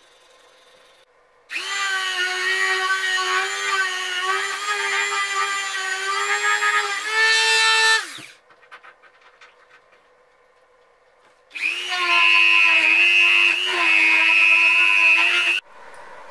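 Electric drill whining at speed as it spins a dowel charged with polishing compound in the groove of an aluminium die half, polishing it smooth. It runs twice, about six seconds and then about four, with a short pause between; its pitch steps up briefly near the end of the first run.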